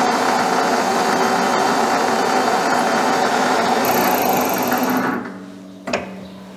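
Small benchtop metal lathe running, with a drill bit in the tailstock boring a 3 mm hole through a small metal sleeve. About five seconds in the machine sound drops away as the lathe stops, and a single click follows.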